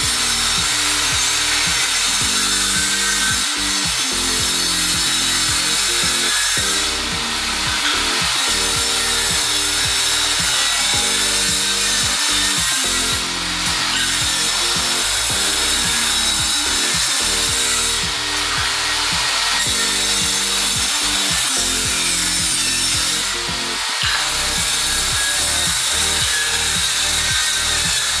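Benchtop table saw ripping a thick hardwood board, a steady loud blade-and-cutting noise, with background music underneath.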